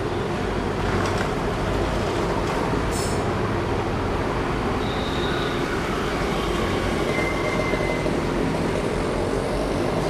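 Steady rumbling background noise, with a few faint short high-pitched tones about three, five and seven seconds in.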